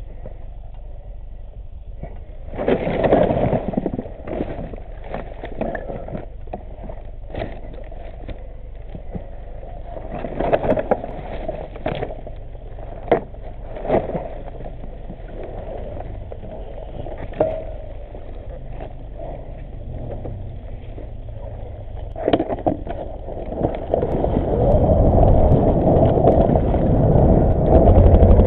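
Dirt bike engine running low in the background, with scattered knocks and clatters as a fallen dirt bike is handled. About four seconds from the end the engine gets louder and stays up as a bike gets under way.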